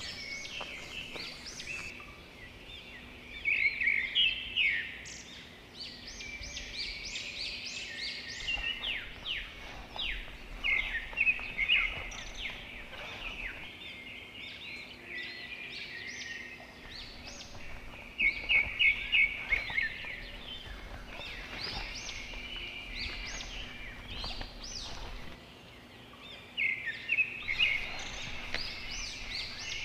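Birds chirping and calling outdoors, with quick runs of high, rapid notes that come in louder bursts every several seconds.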